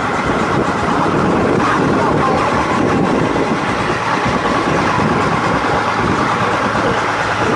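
Boat engine running steadily and loudly while under way, heard from on board.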